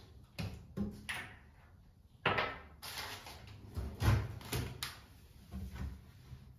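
A string of knocks and clunks as spice jars are set down on a granite countertop and a kitchen cupboard door knocks, the loudest clunk a little over two seconds in.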